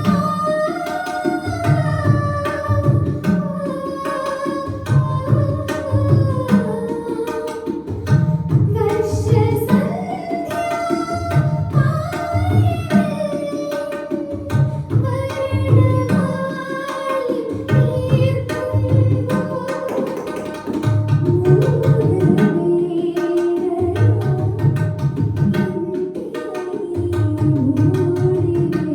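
Indian film song: a woman singing an ornamented, gliding melody over a steady tabla rhythm.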